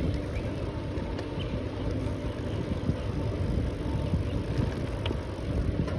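Riding noise from a bicycle on asphalt: a steady low rumble of tyres rolling and wind on the microphone, with a few faint ticks.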